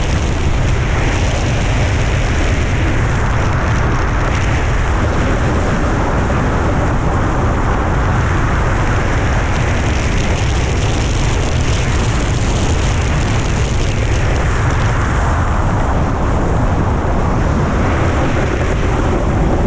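Loud wind rushing over a GoPro's microphone at riding speed, mixed with a snowboard's edges scraping over hard snow. The scrape swells and fades several times through the run.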